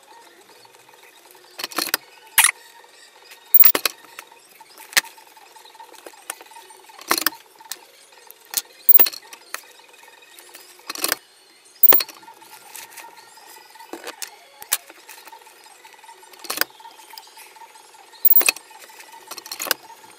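Stiff waterproof jacket fabric and seam tape crinkling and rustling as they are handled, in sharp crackles at irregular intervals over a faint steady hum.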